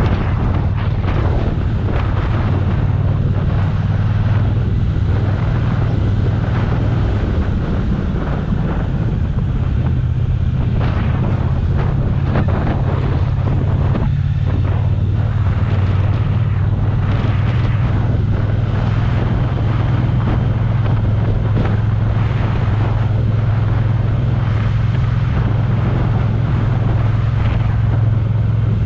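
Motorcycle engine running while riding along, a steady low drone, with wind rushing over the microphone.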